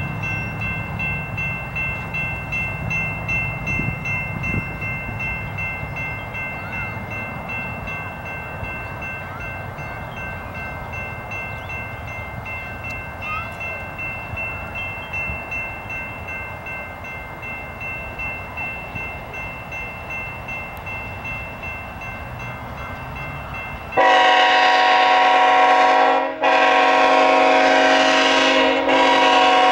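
Grade-crossing warning bell ringing steadily over the low rumble of an approaching train. About 24 seconds in, a locomotive horn comes in much louder, with two long blasts and the start of a third.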